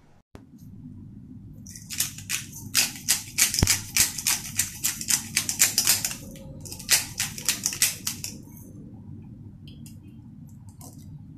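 Pepper grinder being twisted by hand, a quick run of crunchy grinding clicks lasting about six seconds with a short break, over a low steady hum.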